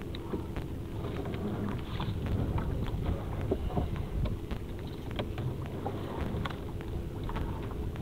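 Wet gillnet being hauled aboard and heaped onto a plastic tarp: scattered small clicks and patters of net and dripping water over a steady low rumble of the boat's motor and wind on the microphone.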